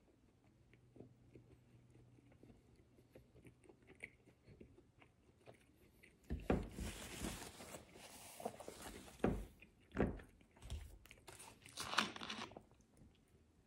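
A person chewing a mouthful of sandwich with the mouth closed. From about halfway through come louder rustling and crackling handling noises close to the microphone, with several sharp knocks, the last of them near the end.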